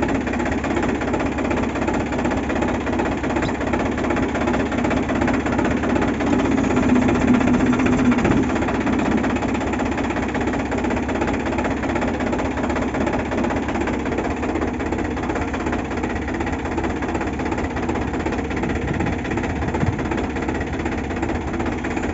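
Tractor diesel engine idling steadily, its note swelling a little for a couple of seconds about seven seconds in.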